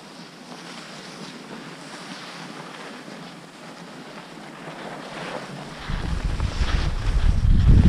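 Wind rushing over the camera's microphone on a fast ski-run descent, over the hiss and scrape of edges on packed snow; about six seconds in the wind turns into a loud low buffeting rumble.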